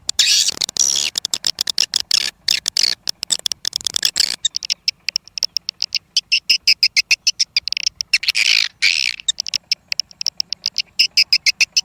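Swiftlets calling: a dense, rapid stream of short high-pitched chirps and twitters, many per second, getting thinner and more shrill after about four seconds.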